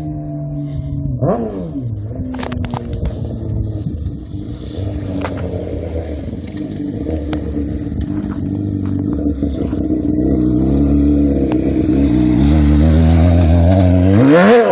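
2006 Honda CBR600RR inline-four running with no exhaust fitted, coming closer and growing steadily louder. It gives a quick rev about a second in, and a sharp rise and fall in pitch near the end as it passes close by.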